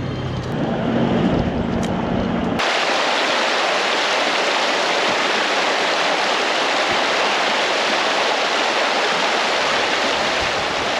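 Background music for the first couple of seconds, then a sudden cut to the steady rush of a creek's running water.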